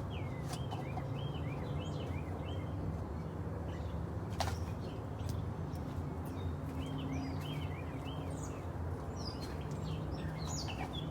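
Birds chirping in runs of short repeated calls, over a steady low hum, with a single sharp click about four seconds in.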